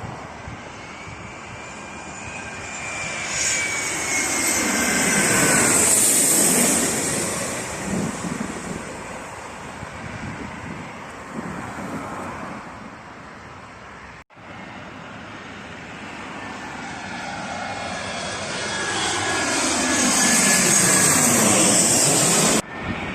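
Jet airliners passing low and close overhead, twice: each swells to a loud peak with a whine that falls in pitch as it goes by. The first fades away, and the second is cut off abruptly near the end.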